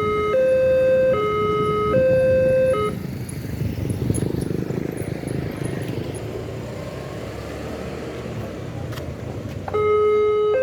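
Railway level crossing warning alarm sounding two alternating electronic tones, one low and one slightly higher, switching about every 0.8 s. It stops about three seconds in and gives way to the noise of passing road traffic, then starts again near the end.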